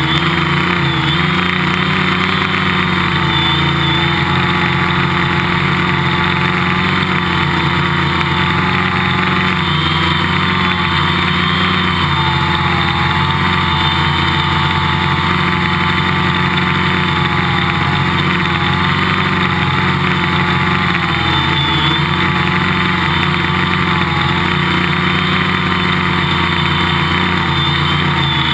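Quadcopter's electric motors and propellers whirring steadily, heard up close from a camera mounted on the airframe. The pitch wavers slightly up and down as the motors change speed.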